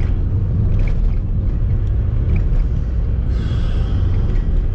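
Van driving on the road, heard from inside the cab: a steady low rumble of engine and road noise. A brief hiss comes about three and a half seconds in.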